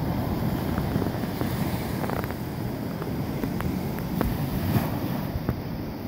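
Wind buffeting the microphone over the steady wash of ocean surf breaking on the beach, with a few faint clicks.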